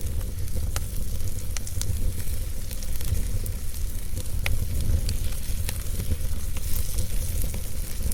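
Fire crackling: irregular sharp pops and snaps, several a second at times, over a steady hiss and a low rumble.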